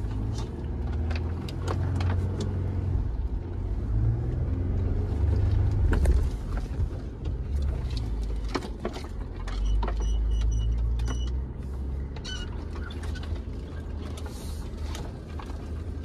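Jeep Gladiator driving on a dirt trail: a low engine hum that rises and falls, with scattered knocks and rattles over the rough ground.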